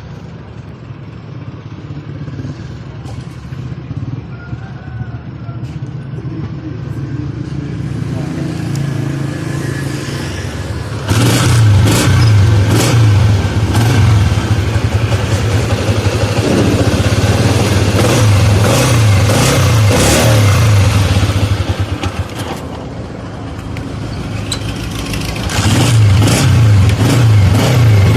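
Chinese CG125-type 125 cc single-cylinder four-stroke motorcycle engine running. It is quieter for about the first ten seconds, turns suddenly much louder about eleven seconds in, eases off for a few seconds a little after twenty seconds, then comes up loud again near the end.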